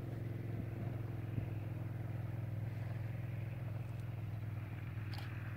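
Adventure motorcycle engine running with a steady low hum, its pitch holding even.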